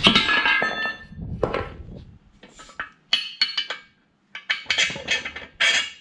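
Steel brackets and a steel bar knocking and clinking against each other and against the excavator dipper arm as they are handled and lined up for welding: a string of sharp metal knocks with short ringing, with a brief pause just before the last flurry.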